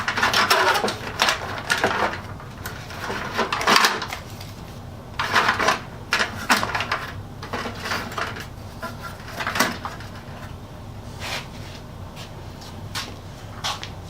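Irregular clicks, knocks and light rattles of hard objects being picked up and set down, with a few louder knocks scattered through.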